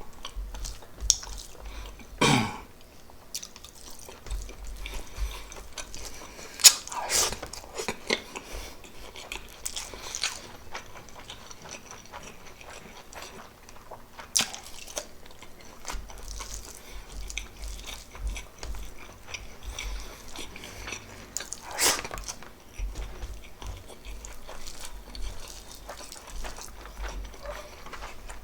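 Close-miked chewing of pork adobo and rice: steady wet mouth clicks and smacks, with a few louder sharp clicks about two, seven and twenty-two seconds in.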